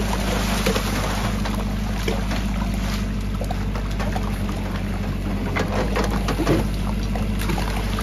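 JCB backhoe loader's diesel engine running steadily, with soil and broken brick falling into a brick-lined well shaft in scattered small clatters.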